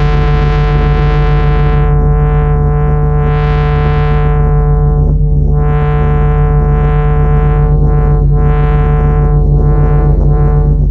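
Ambient electronic synthesizer music: a steady low sustained drone with higher tones swelling and fading over it in irregular waves.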